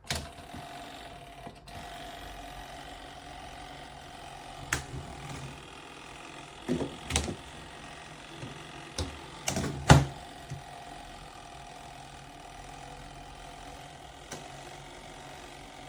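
Small twin-tub portable washing machine running with a steady motor hum, broken by several sharp knocks and clicks about halfway through, the loudest near the middle.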